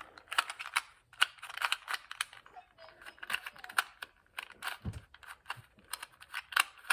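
A plastic puzzle cube being turned fast during a timed speed solve: a quick, irregular run of clicks and clacks as the layers snap round.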